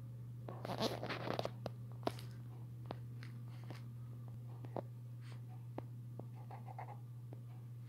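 Fine-tip pen tapping and scratching on paper in short strokes, with a rustle of the hand settling on the page about a second in. A steady low electrical hum lies under it.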